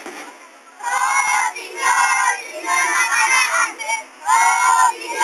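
A group of young female voices chanting in unison in four short, loud phrases with brief pauses between them, over a crowd.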